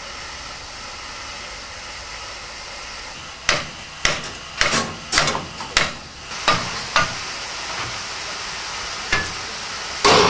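Steam hissing steadily from a C2 narrow-gauge steam locomotive being prepared, with a quick run of sharp metal knocks from about three and a half seconds in and two more near the end, as fitters work on the wheels and valve gear with hand tools.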